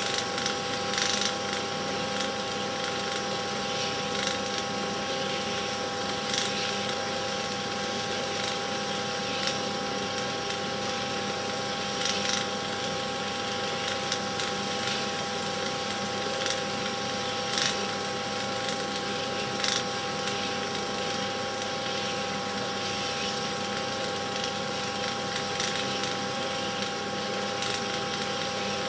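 Cine film projector running: a steady mechanical whirr with a constant hum and hiss, and faint clicks now and then.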